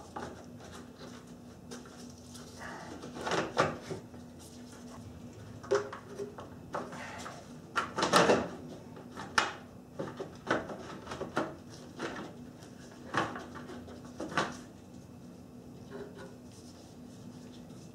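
Irregular knocks, clicks and rustles of gloved hands handling plastic and rubber parts at a car's radiator and hose, with a faint steady hum underneath.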